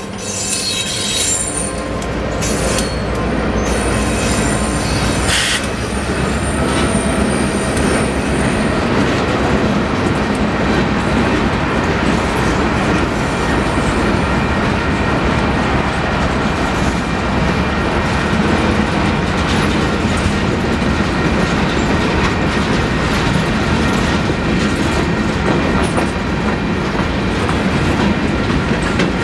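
Freight train passing over a grade crossing. A diesel locomotive rumbles by in the first few seconds, then a long string of empty centerbeam flatcars rolls past with steady wheel-on-rail noise and clacking over the rail joints. A thin high squeal sounds over roughly the first eight seconds.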